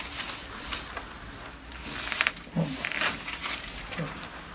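Rustling and handling sounds of a patient being moved on a chiropractic treatment table, with a few short clicks and brief low vocal sounds about two and a half and four seconds in.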